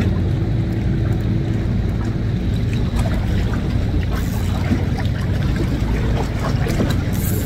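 An engine running steadily with a low, even hum, and a few faint ticks over it.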